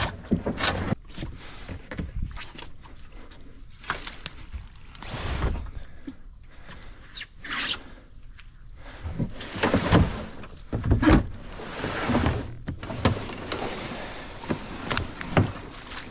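Kayak being paddled through shallow swamp water: irregular paddle splashes and swishes, with knocks of the paddle against the hull.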